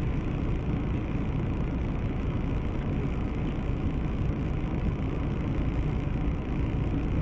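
Steady, even vehicle noise picked up by a dashcam inside a car, with no distinct crash sound standing out.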